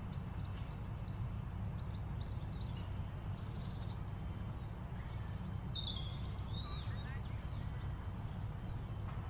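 Faint background ambience: a steady low hum with scattered short high chirps like birdsong.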